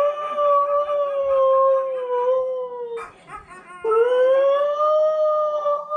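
Husky howling: one long howl that wavers and slides down, breaking off about three seconds in, then after a short gap a second howl that starts low, rises and holds.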